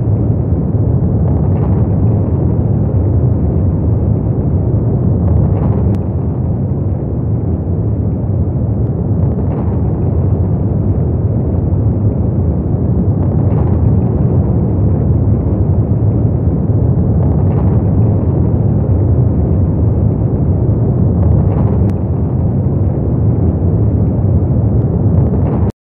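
A loud, steady low rumbling drone, with a faint tick about every four seconds; it cuts off suddenly at the end.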